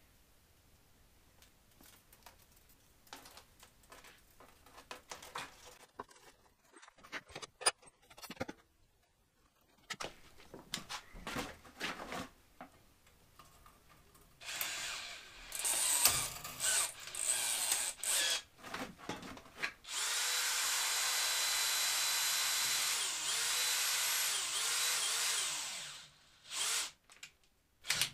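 Cordless drill twisting a length of wire whose far end is clamped in a vise. Faint clicks and rattles come first, then short bursts of the drill from about halfway through. Near the end it runs steadily for about six seconds, its pitch dipping and rising a few times, then stops and gives a few more short bursts.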